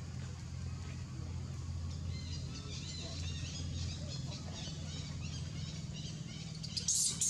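Small birds chirping in quick high notes from about two seconds in, over a steady low hum; a brief sharp crackle near the end.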